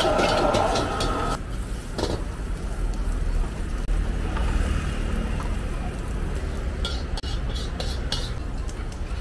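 Gas wok burner running hard under a wok while a metal spatula tosses and stirs fried rice; the burner roar cuts off about a second and a half in. A low steady rumble remains, with a quick run of metal spatula scrapes and clicks against the wok near the end.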